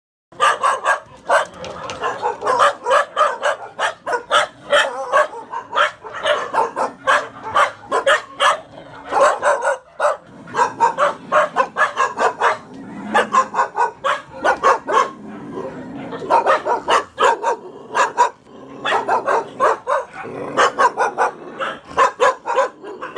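Several caged dogs barking, sharp overlapping barks coming several a second, with a few brief lulls. The barking starts suddenly a moment in.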